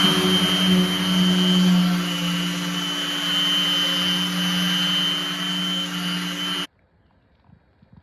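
Electric power tool motor running steadily under a strong hum with a high whine, then cutting off suddenly near the end.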